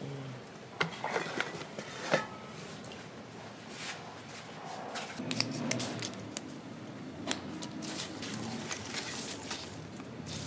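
Light kitchen handling sounds: fresh herb leaves rustling and scattered small clicks as they are picked over into a stainless steel colander.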